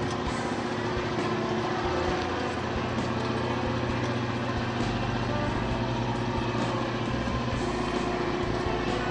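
Steady mechanical hum of a squid-fishing boat's engine and deck machinery running, a constant drone with a held tone.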